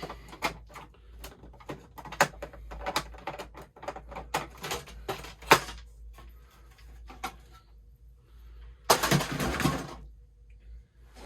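Clicks and knocks of an electronic typewriter's plastic and metal parts being handled and pulled apart, with a louder burst of rattling about nine seconds in.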